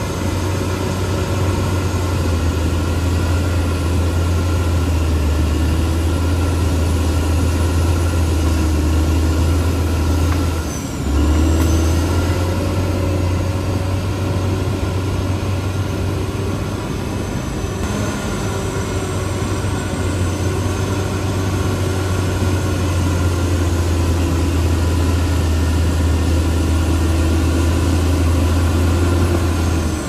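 CAT D6R XL bulldozer's diesel engine running steadily with a heavy low drone. It dips briefly about eleven seconds in, then comes back louder.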